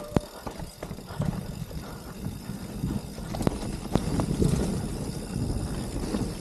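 Mountain bike rolling down a dirt trail: a steady rumble of tyres and wind, with a few sharp knocks and rattles from the bike, the loudest right at the start and two more about three and a half and four seconds in.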